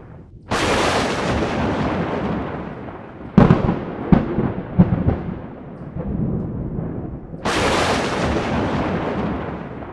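Thunder sound effect: three thunderclaps, each a sudden crack that fades into a long rumble. The second has several sharp cracks in quick succession.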